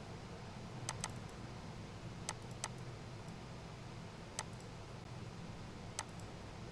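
Computer mouse clicking: about six short, sharp clicks spread out, some in quick pairs, over a faint steady low hum.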